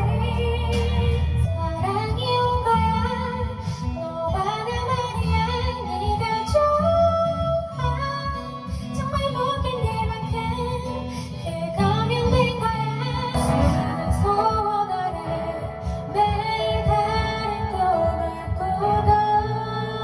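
Music: a pop song sung by a female voice over a steady beat.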